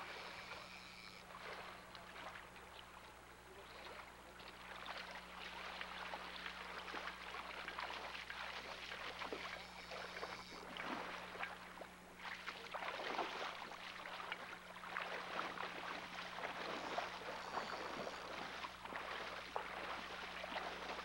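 Shallow river water splashing and sloshing around a hooked chinook salmon being played in and tailed by hand. A steady low hum sits under it.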